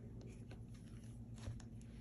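Hardcover journal being handled and shut: faint rustles and small clicks of the pages and cover, with a soft thump about one and a half seconds in as the cover comes down.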